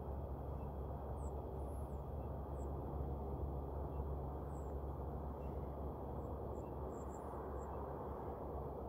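A steady low rumble of outdoor background noise, with faint, very high-pitched bird chirps dotted through it, several in quick succession near the end.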